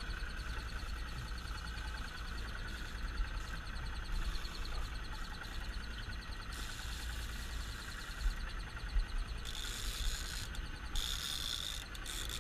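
Steady low rumble of wind and a boat at sea, with a faint, fast, even ticking throughout and two short hissing rushes near the end.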